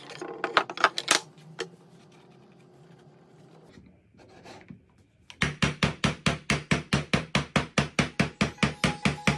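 Wooden strips clattering against each other on a workbench as they are handled, several sharp knocks in the first second. From just past the middle, a fast, even run of sharp hits, about five a second.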